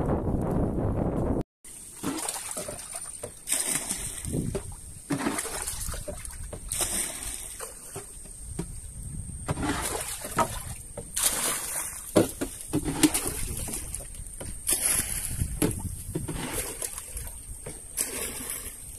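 Paddle strokes splashing in the water as a small dinghy is paddled along, one stroke every second or two. Before that, wind rumbling on the microphone cuts off abruptly about a second and a half in.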